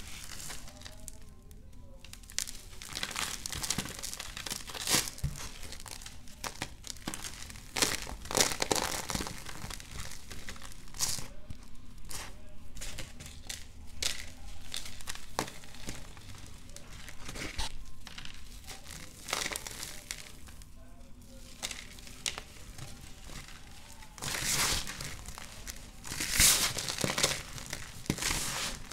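Dried cornstarch blocks made with Fabuloso cleaner being crushed and crumbled by hand: irregular crunching and crumbling as the blocks break and the loose powder is squeezed between the fingers.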